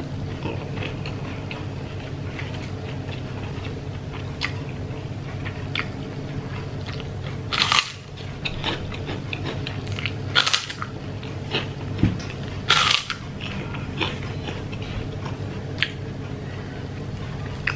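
Close-up eating sounds: a person bites into a crisp white kerupuk cracker, with three loud crunches a few seconds apart in the middle and softer chewing and mouth sounds between them.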